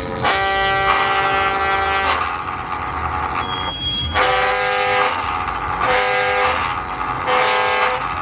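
Calliope whistle pipes played from a keyboard, sounding held chords: one long chord of about two seconds, then after a gap three shorter chords, all over a steady low rumble.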